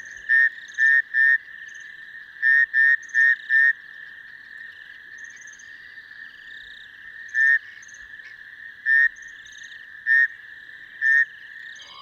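Male rain frogs calling: short, loud, pulsed chirps, three in a quick run at the start, four more a couple of seconds in, then single calls every second or so, over a steady background chorus.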